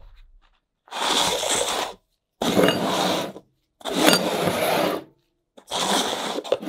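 Paper cups and a steel flashlight reflector shell being slid across a wooden workbench: four scraping slides of about a second each with short gaps between, after a sharp knock at the very start.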